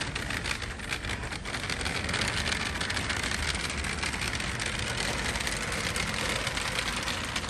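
Wheels of a rolling shopping basket rattling along a hard store floor: a steady rumbling noise with many small clicks, a little louder about two seconds in.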